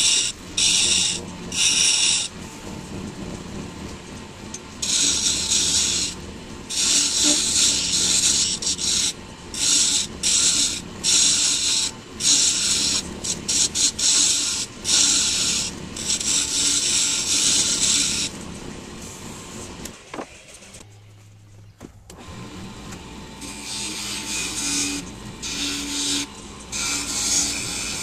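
Hardwood mallet blank spinning on a midi wood lathe while a tool or abrasive is pressed to it: repeated stretches of hissing scrape, one to several seconds each, stopping and starting, over a low steady motor hum. The sound drops out briefly about twenty seconds in, then resumes.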